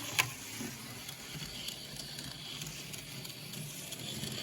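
Johnny Lightning Thunderjet 500 HO slot car running around the track, its small electric motor and gears whirring steadily, with one sharp click just after the start. The car is not yet oiled and its track is dirty, which the owner blames for it running slowly and sticking.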